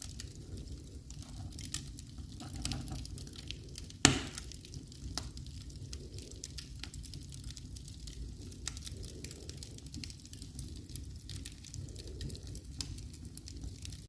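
Wood fire in a fireplace crackling over a low rumble, with scattered small crackles and one loud pop about four seconds in.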